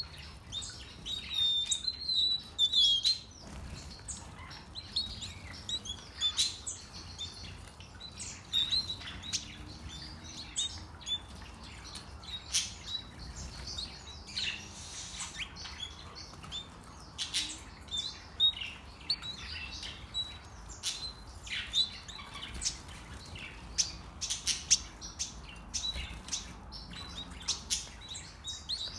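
A colony of small aviary finches chirping and twittering: many short, high calls overlapping all through, with frequent sharp clicks.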